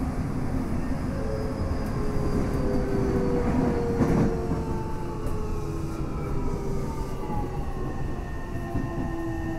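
Tokyo Metro 7000 series train's Hitachi IGBT inverter and traction motor whine sliding slowly down in pitch over running noise as the train slows for the next station. A short rush of noise comes about four seconds in.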